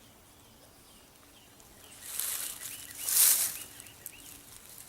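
Two short bursts of close rustling, the louder one about three seconds in, with faint small bird chirps in the background.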